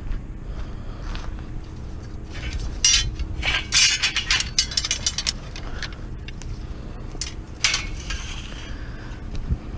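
Light steel scrap clanking and clinking as pieces are handled and knocked together, in a quick run of clanks a few seconds in and one more near the end, over a steady low rumble.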